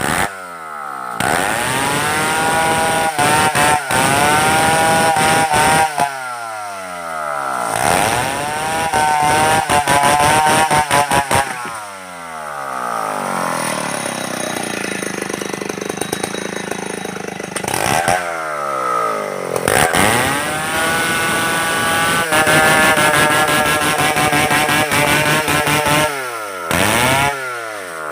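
Stihl 070 two-stroke chainsaw revved repeatedly: the engine note climbs sharply from low to a high scream and drops back about half a dozen times, with a rougher, steadier running stretch in the middle.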